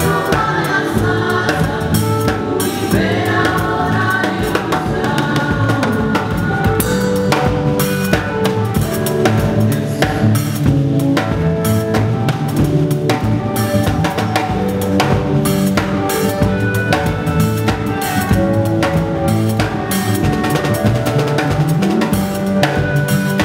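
Gospel music with a drum kit keeping a steady beat of bass drum and snare under held instrumental notes.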